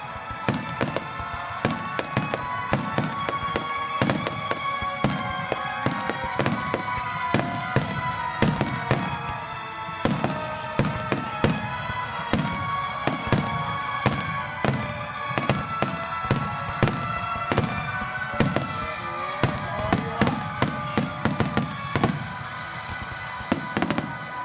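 Fireworks display: a rapid barrage of aerial shell bursts, several sharp bangs a second one after another, with music playing under them.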